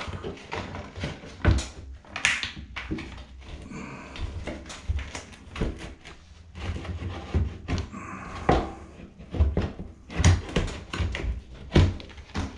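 Exhaust fan housing knocking, clicking and scraping against the plasterboard ceiling cutout as it is worked into the hole, in irregular thunks.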